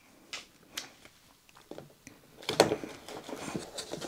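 Paper and a long cardboard kit box being handled on a wooden table. A few light ticks come first, then from about two and a half seconds in a longer stretch of rustling and scraping as the box is moved.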